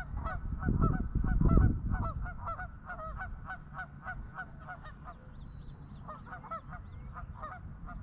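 A flock of birds calling over and over, short honking notes several a second. A low rumble from about half a second to two seconds in is the loudest part.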